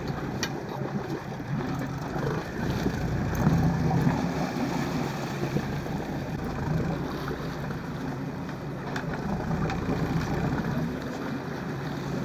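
A boat's engine running steadily, with wind buffeting the microphone and a few faint clicks.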